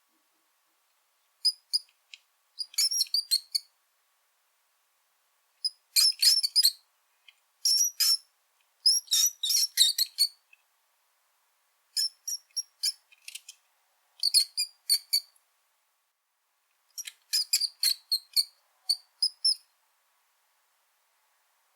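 Brown rat squeaking: clusters of short, rapid, high-pitched squeaks, each cluster lasting up to about a second, with silent gaps between them.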